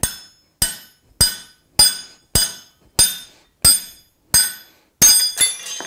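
Hand hammer driving a mild steel half-inch drift through the punched hole in a flat jaw tong half, opening the hole for the boss. Eight steady ringing blows about every 0.6 s, then a quicker run of blows near the end as the drift goes through.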